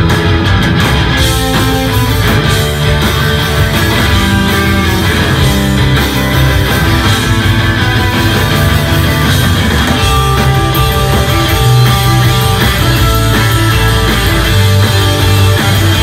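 Live rock band playing loud, with distorted electric guitars over bass and drums.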